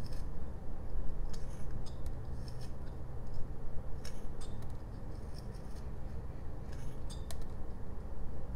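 Carving knife slicing into a block of jelutong wood by hand: short, crisp cutting strokes at irregular intervals, with pauses between, over a low steady background hum.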